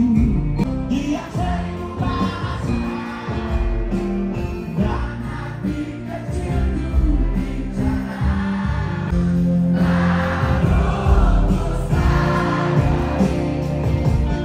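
Live rock band performing a song with sung vocals, the band's music and singing running continuously.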